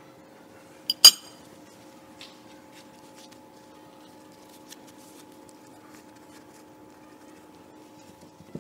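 Dishes clinking: two quick, sharp knocks of glass or crockery about a second in, the second the loudest and ringing briefly, then faint light clicks of kitchenware being handled over a steady low hum.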